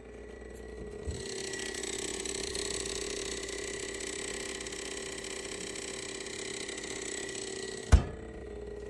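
A steady mechanical hum with a hiss that swells about a second in, a small click at that point, and one loud thump near the end, after which the hiss drops back.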